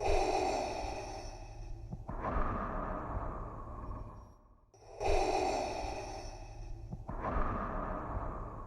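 Darth Vader's respirator breathing sound effect, recorded through a scuba regulator: slow, even mechanical breaths, two full cycles, each a drawn breath and a release of about two seconds apiece.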